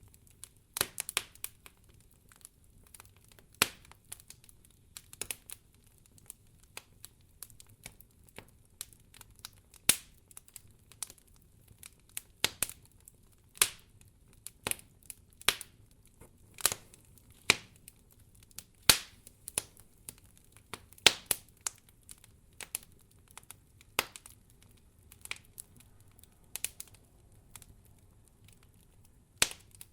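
Wood fire crackling: irregular sharp pops and snaps, a few loud ones every second or two, over a faint low rumble of burning.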